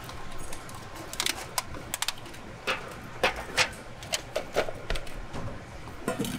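Irregular clicks and taps of food being seasoned and packed into a container, over a steady low hum.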